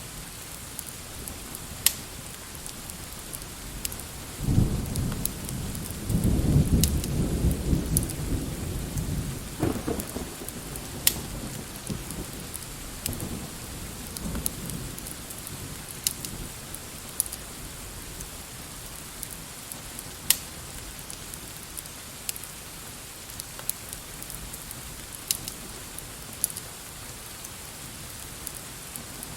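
Steady rain hiss with a long low roll of thunder starting about four seconds in and dying away by about ten seconds, a fainter rumble following a few seconds later. Scattered sharp crackles sound throughout.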